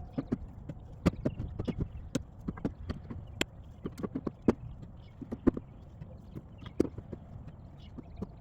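Irregular hollow knocks and clunks of cut ash firewood pieces striking one another as they are handled, several a second.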